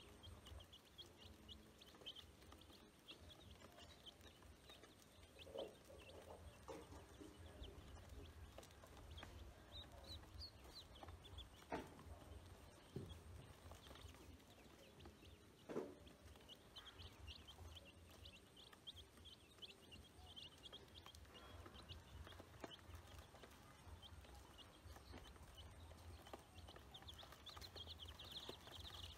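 Ducklings and chicks peeping faintly and continually, with a few soft knocks in between.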